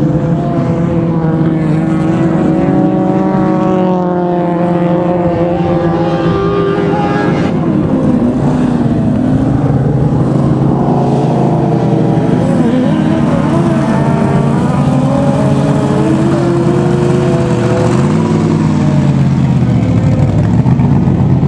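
Several race car engines running hard at once, their pitches rising and falling as the cars accelerate and lift on ice; near the end one engine drops in pitch and then climbs again.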